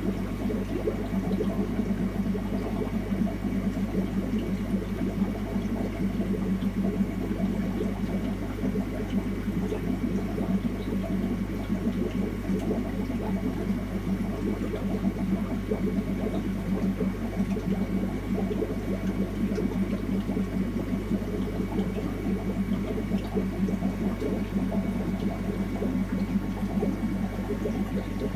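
Aquarium filtration running: water bubbling and splashing steadily in the tank, over a constant low hum from the pump.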